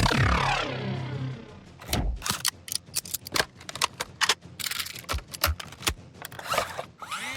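Futuristic sci-fi sidearm and laser sound effects: a heavy zap with a falling pitch sweep, then a quick, uneven string of synthetic gunshots and laser blasts, a few with short swept tails near the end.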